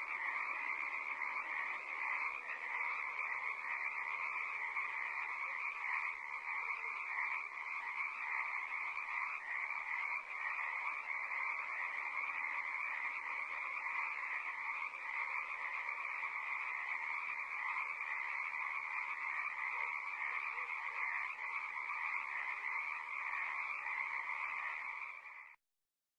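Dense chorus of many frogs calling in a swamp, a steady mass of overlapping croaks that cuts off suddenly near the end.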